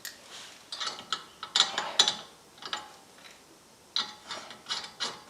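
Loose metal hardware clinking and clattering as it is rummaged through by hand, in irregular clusters of sharp clicks, while spacers are sought out.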